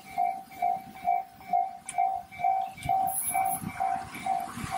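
Japanese railway crossing warning bell ringing its 'kan-kan' tone, about two strokes a second, as the crossing is closed for a train. Near the end the rumble of the approaching Tobu Tojo Line train starts to build under the bell.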